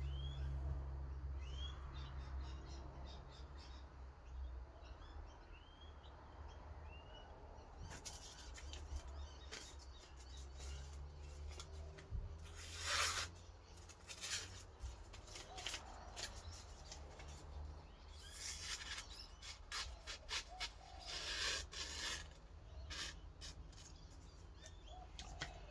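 Intermittent scraping rubs of a scandi-ground knife blade worked on 600-grit wet/dry abrasive paper, in irregular strokes of different lengths. The loudest comes about 13 seconds in. In the first few seconds a small bird chirps several times, each chirp rising.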